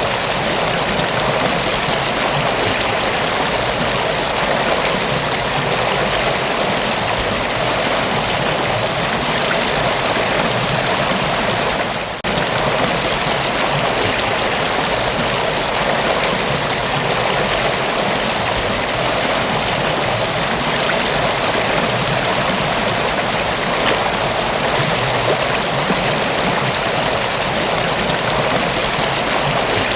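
Mountain waterfall: a steady, dense rush of falling water with no breaks, apart from a brief dip in level about twelve seconds in.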